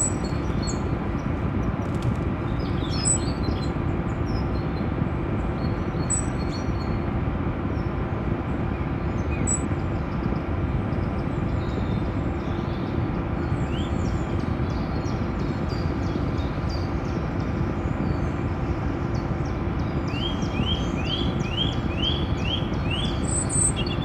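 Steady hum of a quadcopter drone's rotors over a low rumbling noise, with birds chirping throughout and a quick run of about seven rising chirps near the end.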